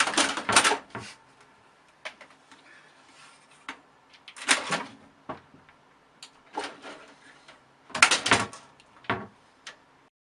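A string of irregular knocks and rattles, loudest at the start, about four and a half seconds in, and about eight seconds in, with lighter clicks between.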